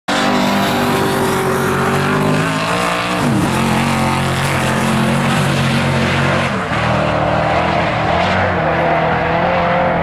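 1964 Chevrolet Malibu SS race car's V8 engine running hard on the track, loud and steady, its pitch dipping sharply about three seconds in and again near seven seconds.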